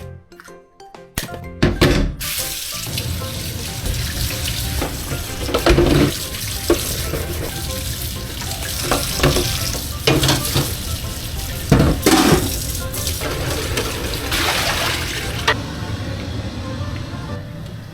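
Kitchen tap running into a sink, with several clunks of dishes being handled under the water. The water comes on about two seconds in and stops a couple of seconds before the end.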